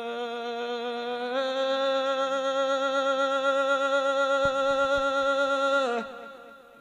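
A man's singing voice holding one long sustained note in a Gujarati dayro folk song, with a slight vibrato; the pitch steps up a little about a second and a half in, and the note cuts off about six seconds in.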